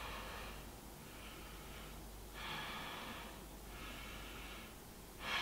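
A person breathing deeply in and out: faint, soft rushes of air, about five in a row, roughly one a second.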